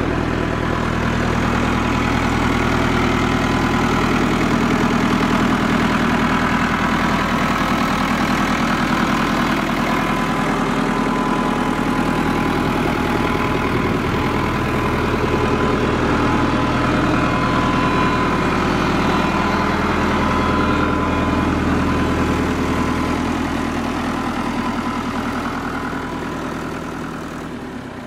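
Case IH 885 tractor's diesel engine idling steadily, fading near the end.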